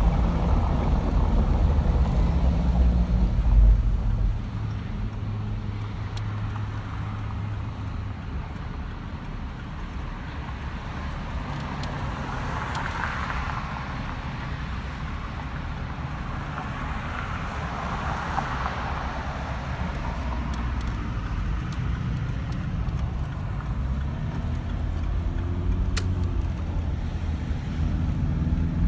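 Car driving along a road: steady engine and road rumble, with two swells of passing traffic in the middle. Near the end the engine pitch rises as the car accelerates.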